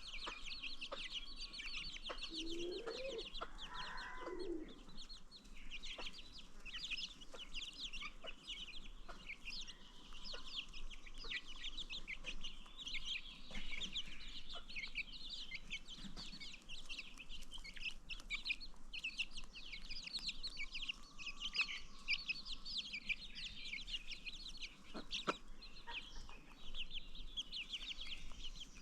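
A brood of baby chicks peeping continuously in dense, high-pitched chirps. An adult chicken gives a couple of lower calls about three to four seconds in.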